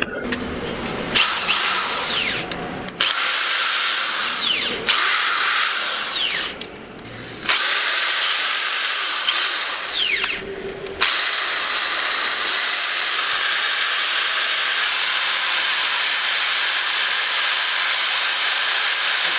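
A 13mm hammer drill's electric motor running under test. It is switched on and off in several short runs of a few seconds each, its high whine sliding in pitch as it changes speed, then runs steadily for the last eight seconds or so.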